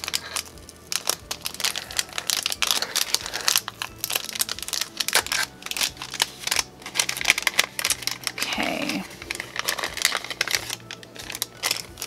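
A small translucent paper envelope crinkling and rustling in the hands as it is handled and opened, in dense irregular crackles.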